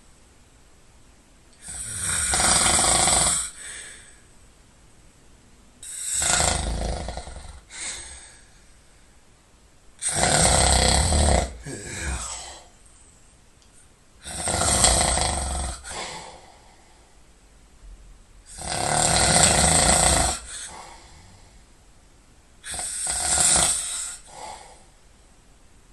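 A person snoring loudly and rhythmically: six long snoring breaths about four seconds apart, with quiet pauses between them.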